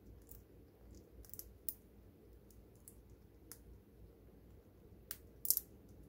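A pet chipmunk nibbling and cracking the food held in its paws: scattered small, sharp clicks, with the loudest quick cluster near the end.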